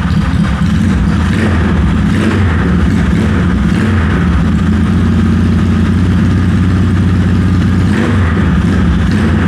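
Yamaha XS650's air-cooled parallel-twin engine running at idle through a custom exhaust, picking up slightly a couple of times.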